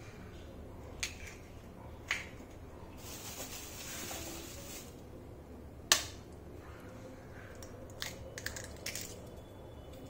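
Eggshells being cracked by tapping them with a steel spoon: a few sharp cracks, the loudest about six seconds in and a quick cluster of smaller cracks near the end, with a soft hiss for a couple of seconds in between.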